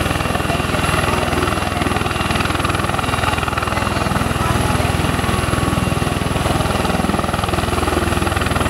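Bell Boeing V-22 Osprey taxiing slowly with its proprotors tilted up in helicopter mode. Its two turboshaft engines and proprotors give a loud, steady drone made of fast, even pulses.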